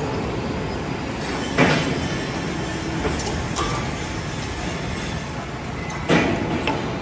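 Radial arm drilling machine running as it drills holes in a steel column base plate, a steady mechanical din, with two short louder bursts of noise about a second and a half in and again near the end.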